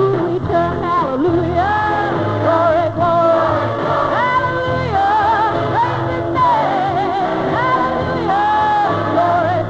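Music with singing: a sung melody of held, wavering notes over steady accompaniment.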